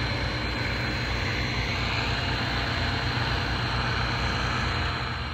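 Landini Mythos tractor's diesel engine running steadily, with a low pulsing rumble.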